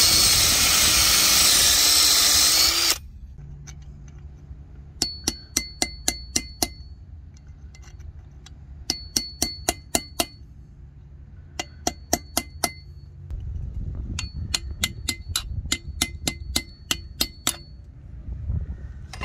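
Electric drill boring into a broken steel bolt in a truck air dryer housing, stopping about three seconds in. Then four short runs of quick, sharp metallic taps with a high ring: a hammer striking a steel tool set in the drilled-out bolt.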